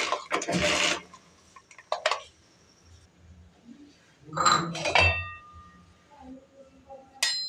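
An electric hand mixer whirs briefly in a frothy milk mixture, then stops. Later come metal utensil clinks: one ringing clink about halfway through and a sharp clink near the end.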